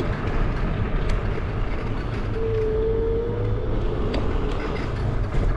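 A vehicle on the move with the cameras on board: a steady low rumble and wind-like noise, with a few sharp knocks. Midway, a thin whine comes in for about a second and a half, slowly rising in pitch.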